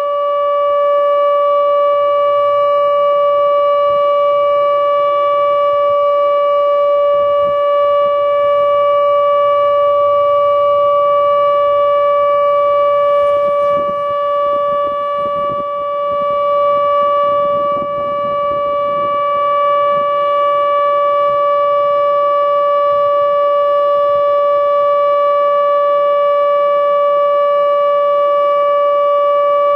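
ATI HPSS-16R electronic warning siren sounding its steady alert tone for a tornado warning: one unchanging pitch with bright overtones and no rise or fall, wavering a little in loudness about halfway.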